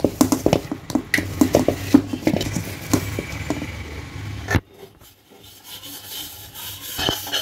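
Hands kneading momo dough in a metal pan: quick rubbing and scraping strokes with light knocks against the pan, stopping abruptly about four and a half seconds in.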